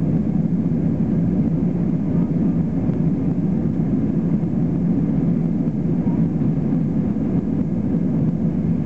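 Steady low drone of cabin noise inside a Boeing 737-200 on final approach, from its Pratt & Whitney JT8D low-bypass turbofan engines and the air rushing past the fuselage, heard from a window seat beside the wing.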